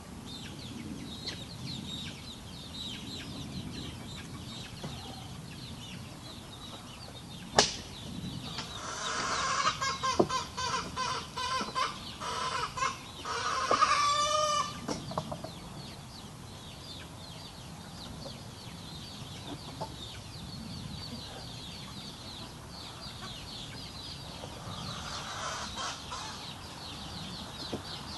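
Chickens clucking and cackling, loudest from about eight to fifteen seconds in as a run of quick calls ending in one long drawn-out note, with a single sharp click just before. Faint high chirping goes on underneath.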